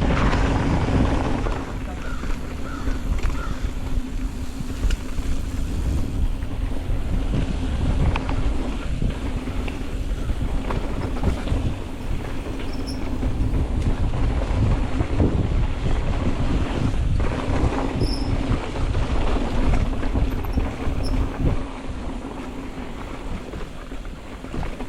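Wind buffeting a mountain biker's helmet or chest camera microphone during a fast downhill run. Frequent knocks and rattles come from the bike going over rough trail.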